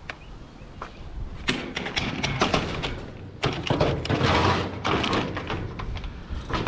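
A run of thuds and knocks with longer spells of clattering and scraping, like objects being handled and shifted about.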